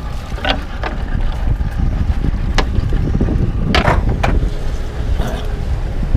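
Wind buffeting the microphone and choppy water slapping against a small fishing boat's hull, with a handful of sharp slaps or knocks, the loudest a pair a little before and after four seconds in.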